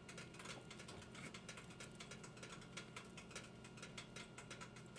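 Faint, rapid, irregular clicking of a kitchen knife against a cutting board as slices of smoky vegan cheese are cut, over a low steady hum.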